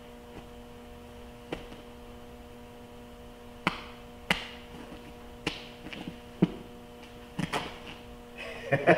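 Steady electrical mains hum, with a few sharp clicks scattered through it and a cluster of footsteps and knocks near the end.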